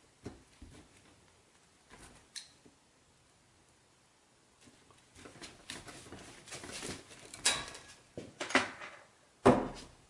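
A few small clicks from a cable stripper on the white sheathed electrical cable, then several seconds of scraping and rustling as the plastic jacket is slit and worked off the wires, with a sharp knock near the end.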